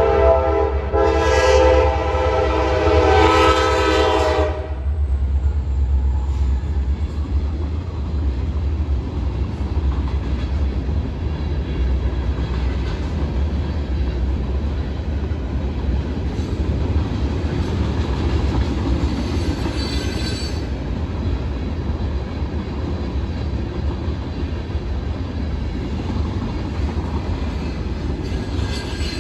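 Norfolk Southern freight train's locomotive horn blowing a chord that cuts off about four and a half seconds in, followed by the steady low rumble of the train rolling past.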